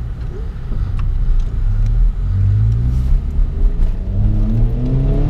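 Honda Civic engine and aftermarket large-bore "fart cannon" exhaust accelerating, heard from inside the cabin. The engine note climbs steadily in pitch through the second half.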